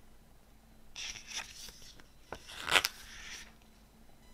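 Paper pages of a CD booklet being turned and handled, giving two bouts of rustling, the second and louder one near the middle.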